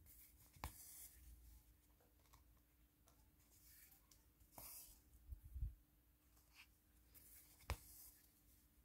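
Faint rustle of embroidery thread being drawn through canvas: a few soft swishes, with two small sharp clicks, one near the start and one near the end.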